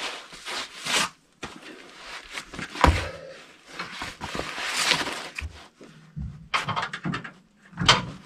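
Cardboard crinkling and scraping under a person's body and clothes as he crawls onto his back and slides under a pickup truck, in irregular bursts with a sharp knock about three seconds in.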